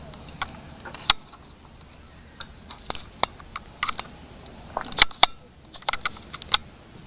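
Handling noise from a handheld camera being moved: irregular sharp clicks and taps on the camera body, with louder knocks about a second in and twice around five seconds in.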